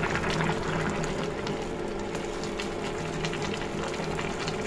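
A pot of mixed vegetables and chana dal simmering in water, with a steady bubbling hiss dotted with small pops, as a spatula stirs it. A steady low hum runs underneath.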